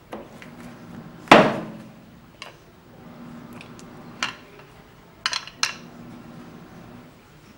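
Metal clanks and clinks as a steel steering rack and a hand tool are handled on a workbench: one loud ringing clank about a second in, then four lighter knocks, two of them close together near the end.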